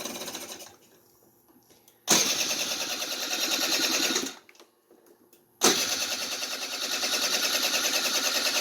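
Kymco 150cc scooter's electric starter cranking its four-stroke single-cylinder engine in short tries. One try trails off in the first second, then two more start and stop abruptly, about two and three seconds long. The engine does not catch: the freshly cleaned carburetor's float bowl is still empty of fuel.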